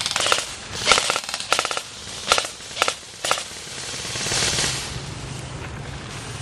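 Airsoft rifles firing several short bursts of rapid shots in the first half, followed by a short rush of noise.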